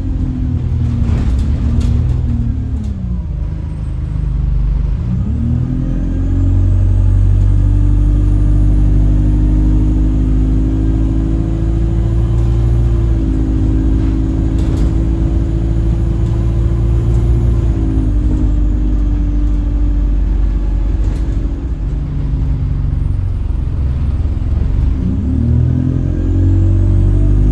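Alexander Dennis Enviro 200 bus running with a loud horn-like drone over its diesel engine. The drone rises and falls with road speed, holds steady for a while, then drops and climbs again as the bus shifts gear and accelerates. The owner suspects the gearbox is causing the noise.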